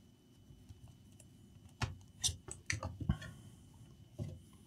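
Handling noise from a loose laptop LCD panel: a quick run of sharp clicks and light knocks about two seconds in, and one more knock near the end, as the panel is connected and set upright on the laptop base.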